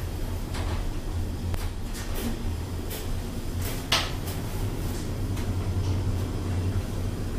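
1993 Tepper diagonal traction glass elevator cab running along its incline: a steady low hum of the drive and car, with several light clicks and knocks and one sharper click about four seconds in.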